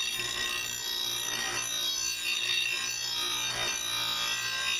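Blade-sharpening grinder's abrasive wheel grinding a steel lawnmower blade: a steady rasping grind over the grinder's motor hum, with a little metal being taken off the blade's heavy side to balance it.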